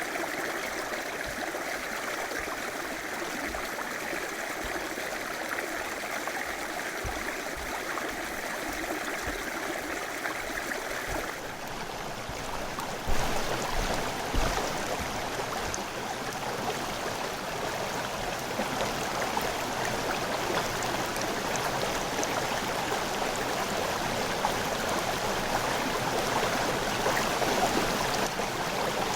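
River water running steadily over rocks, a dense rushing and gurgling. About halfway through the sound shifts, becoming brighter and a little louder, with a couple of brief low thumps.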